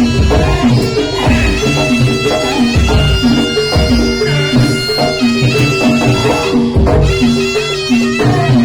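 Javanese jaranan gamelan music played loud and steady: a shrill reed-trumpet melody held over evenly repeating gong-chime notes and hand-drum strokes.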